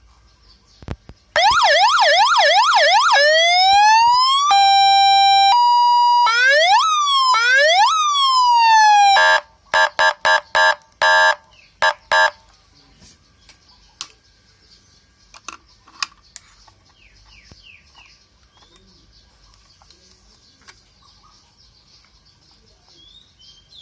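30-watt box-type electronic motorcycle siren sounding through several tone patterns: fast repeated rising sweeps, then a slow rise into a steady note that steps up to a higher one, then slower rising-and-falling sweeps, then about eight short blasts. It stops about 12 seconds in.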